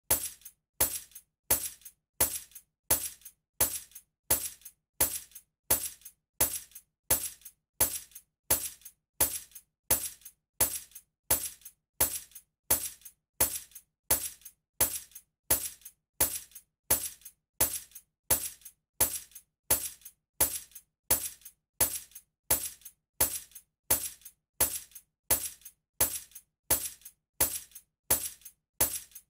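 A bunch of metal keys jingling, shaken over and over in an even rhythm of about one and a half shakes a second, each shake a bright clink with a few smaller clinks trailing.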